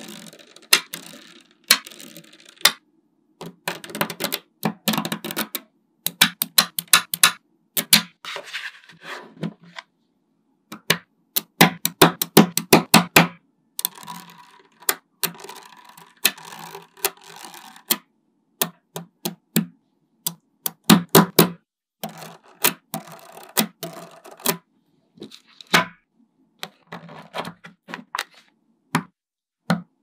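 Small neodymium magnet balls clicking together as strands and rows of them are pressed onto a block of balls: quick flurries of sharp clicks, broken by short pauses and stretches of rattling as the balls settle.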